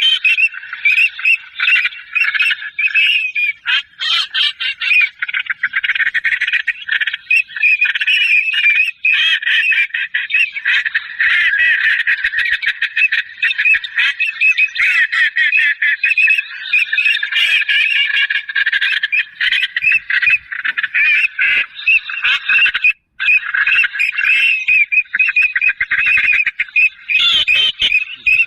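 A continuous, loud chorus of waterfowl calls: dense overlapping honking and squawking that barely lets up, briefly dropping out once about three-quarters of the way through.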